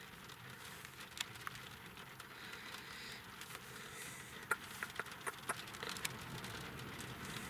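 Light rain pattering on the car's roof and windscreen, heard from inside the car: a faint steady hiss with scattered, irregular ticks of single drops.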